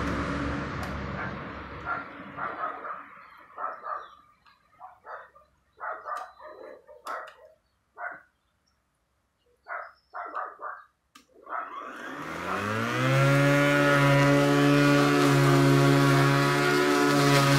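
Ruris RXi 3000 cordless battery lawn mower: its electric motor and blade spin down and stop in the first few seconds. About twelve seconds in, the motor spins up again with a rising whine and runs steadily. In the lull a dog barks a number of times.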